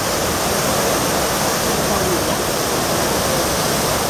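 Trevi Fountain's water cascading and splashing into its basin: a steady, dense rush of falling water. Faint voices of people can be heard behind it.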